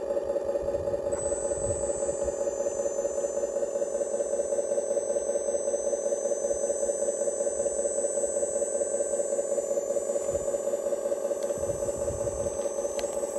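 Scale RC Iveco tipper truck's hydraulic tipping system running as the telescopic ram lifts the loaded bed. A thin high whine sets in about a second in and cuts off near the end, over a steady, rapidly pulsing mechanical hum.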